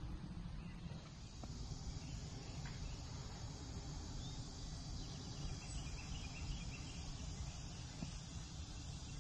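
Outdoor summer ambience: a steady low rumble and an even hiss of insects, with a short run of faint high chirps around the middle.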